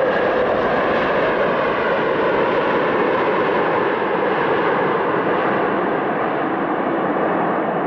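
Airliner jet engines running with a steady, even noise and a faint hum in it.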